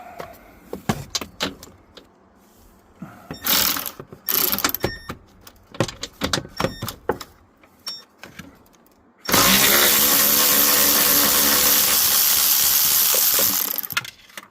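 Tool clicks and short rattles, including brief runs of ratchet-like ticking, then a power driver runs loudly and steadily for about four seconds as it backs out a small 10 mm dash trim bolt.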